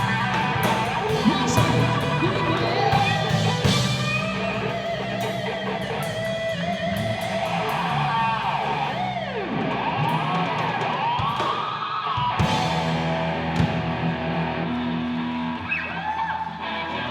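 Live rock band playing, with electric guitar to the fore over drums; in the middle, notes bend up and down in pitch.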